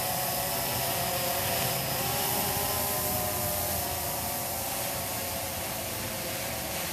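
Blade 350QX quadcopter's brushless motors and propellers whining steadily as it hovers overhead, the pitch shifting a little about two seconds in as the motors adjust.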